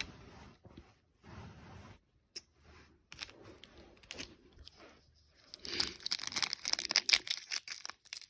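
Plastic wrapper of a trading-card pack being handled and torn open: faint rustling at first, then a louder run of crinkling and crackling from about five and a half seconds in.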